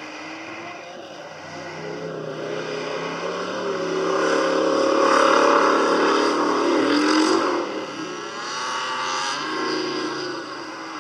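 Square-body Chevy off-road truck's engine revving hard as it runs the dirt course and passes close by. It is loudest and climbing in pitch about five to seven seconds in, then drops off and fades.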